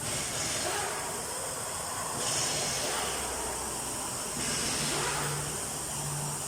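Steady hiss of background noise, with a faint low hum coming in about five seconds in.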